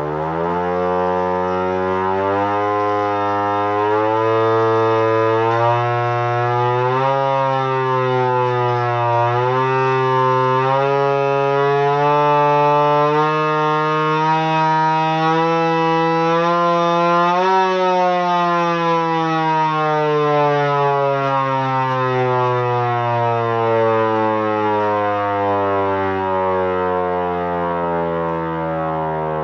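Vixen Horns VXS-1200MBR siren winding up, its pitch climbing slowly for about seventeen seconds with a couple of brief dips. It then winds down, the pitch falling gradually.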